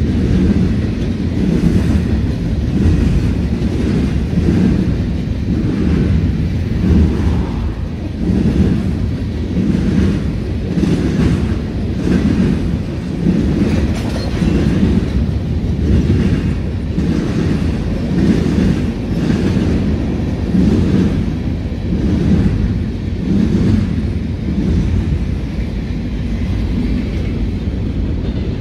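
Freight train of covered hoppers and a flatcar rolling past, with a steady rhythm of wheel clacks about one a second; slightly quieter near the end.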